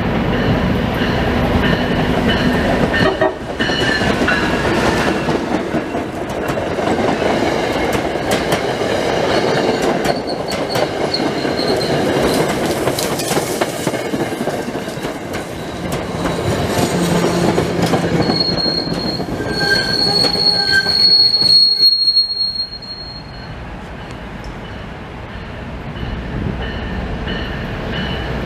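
Train running through on steel rails, with a steady rumble and high-pitched wheel squeal that is strongest about two-thirds of the way through. The sound then drops off suddenly.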